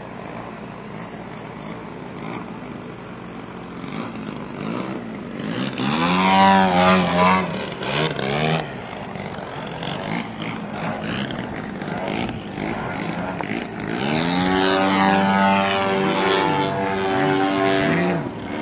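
Radio-controlled model airplane's propeller engine running as it flies, swelling loud on two close passes about six and fifteen seconds in, its pitch sweeping as it goes by.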